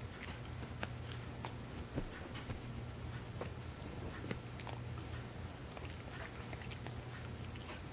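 Small dog gnawing a bone: irregular sharp crunches and clicks of teeth on bone, over a steady low hum.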